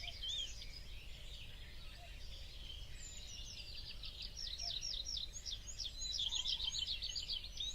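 Small birds chirping and twittering, with sparse high chirps at first and a fast, dense run of short chirps from about three seconds in.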